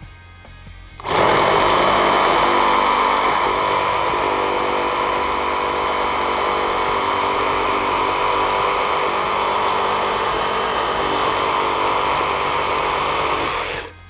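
Makita JR002G 40V cordless reciprocating saw cutting through a thick square timber in orbital mode at top speed (5). It starts about a second in, runs steadily under load through the cut, and stops abruptly just before the end.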